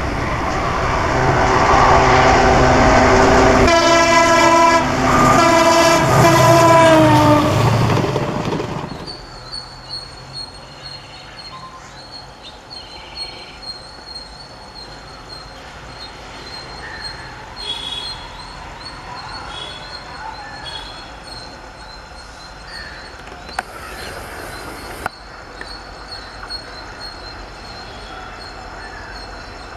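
A diesel locomotive hauling a passenger train passes at speed, blowing a long multi-note horn that drops in pitch as it goes by. The train noise dies away about nine seconds in, leaving a quieter steady background with high chirping and a few faint clicks.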